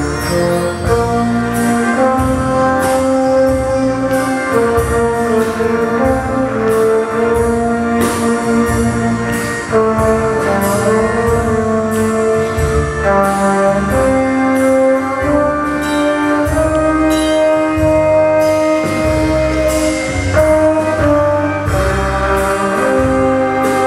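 Trombone playing a melody in long, held notes over a backing band with a bass line and a steady beat.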